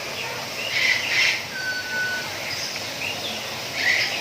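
Birds calling in a bird park: bursts of high, rough chirps about a second in and again near the end, and a short, steady whistled note about a second and a half in, over a constant background of distant chatter and noise.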